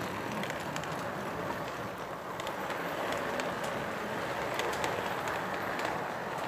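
Lionel model freight cars rolling past close by on the track: a steady rumbling clatter of wheels with scattered sharp clicks.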